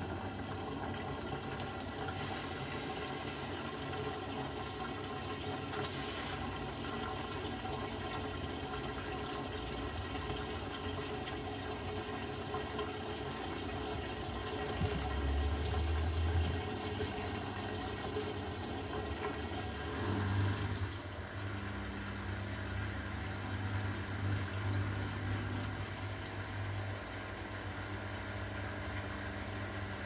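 Beko front-loading washing machine in its wash cycle: the drum turns laundry through sudsy water with a steady sloshing and motor hum. A deeper low thump comes about halfway through, and a few seconds later the motor's note changes as the drum's movement shifts.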